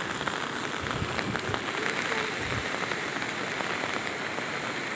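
Steady rain pattering on floodwater, with many small drop ticks.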